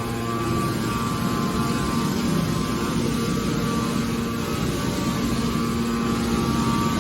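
Waste aluminium baler running: a steady mechanical drone with a constant hum.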